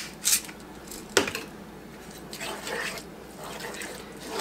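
A spoon stirring a thick, creamy chicken mixture in a skillet, giving soft wet squelching sounds, with a single sharp knock about a second in.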